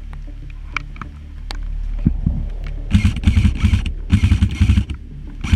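Airsoft gun firing in bursts of rapid clattering shots close by, with scattered single shots before the bursts start about two seconds in.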